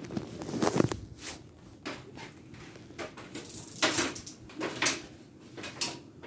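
Several short knocks and clacks, about one a second, the first and loudest about two-thirds of a second in, as of hard objects being handled or set down in a small room.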